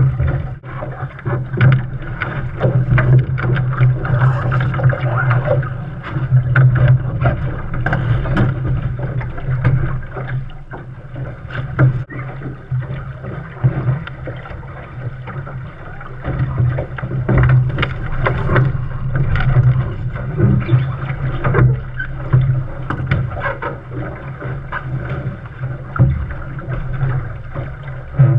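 Snipe sailing dinghy under way: water rushing and splashing along the hull, with irregular knocks and a continuous low rumble.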